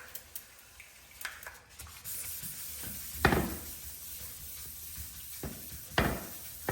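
Wet sanding of fiberglass boat gelcoat with 1,200-grit wet sandpaper: a steady gritty hiss of the paper on the wet surface from about two seconds in, with two louder swishes.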